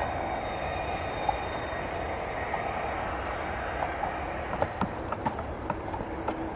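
Jet airliner noise during a landing, a steady rushing with a faint high whine that fades in the first couple of seconds. A handful of sharp clicks come near the end.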